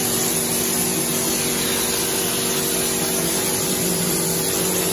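Mortar spraying machine running steadily: a constant motor hum under the hiss of air-blown mortar leaving the spray gun.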